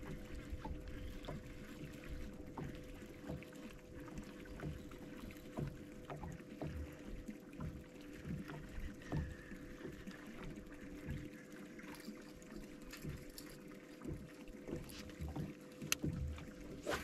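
Small waves lapping and slapping against a bass boat's hull in irregular soft knocks, over a faint steady hum.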